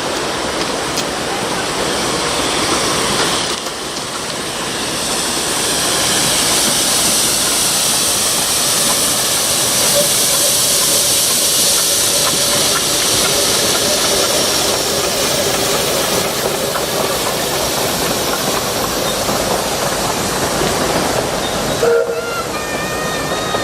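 Narrow-gauge steam locomotive hissing steadily as steam escapes, getting louder a few seconds in. Near the end the hiss cuts off abruptly and short high chirping calls follow.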